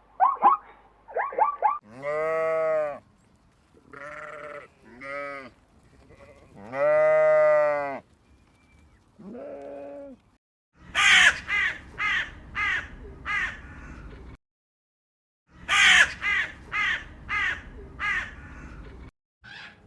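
Sheep bleating: several long, wavering bleats and a few shorter ones over the first half. Then come two runs of five or six short, harsh calls, each run starting loudest and fading away.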